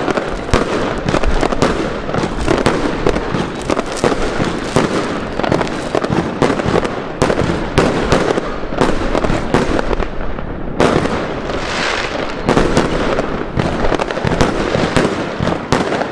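Aerial fireworks firing and bursting in quick succession: a dense, unbroken run of bangs and crackles. About eleven seconds in, a rushing hiss joins them.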